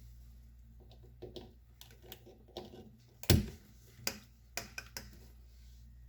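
Scattered light clicks and knocks of kitchen handling, one sharper knock about three seconds in, over a low steady hum.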